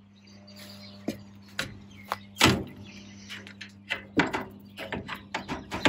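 A run of irregular knocks and clicks, a dozen or so, some sharper and louder than others, over a steady low hum.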